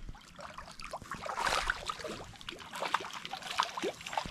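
Hooked trout splashing and thrashing at the water's surface in the shallows as it is reeled in to the shore, in irregular splashes.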